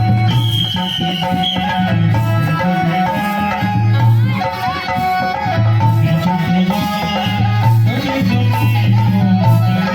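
Loud recorded music with a heavy, repeating drum beat and a melody over it, in a folk or traditional style.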